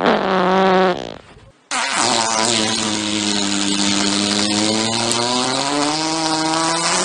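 Fart sound effects: a short buzzy fart about a second long, then after a brief pause a long, drawn-out buzzing fart whose pitch sags and slowly rises again.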